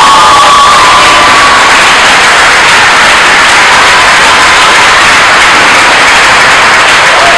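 Audience clapping and cheering loudly, very close to the microphone so it comes across as a harsh, overloaded roar, with a few held whoops in the first couple of seconds.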